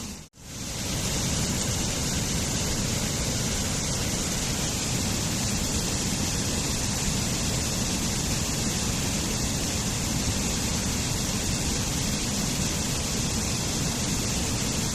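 Waterfall rushing in a steady, even wash of water noise. Just after the start it fades out to silence for a moment and swells back in.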